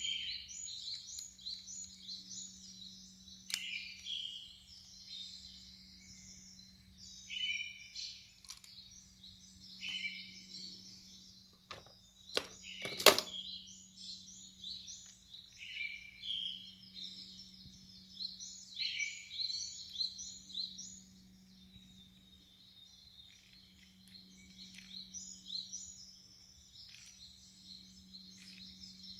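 Songbirds chirping and singing in repeated short phrases over a steady low hum, with a few sharp clicks about twelve seconds in.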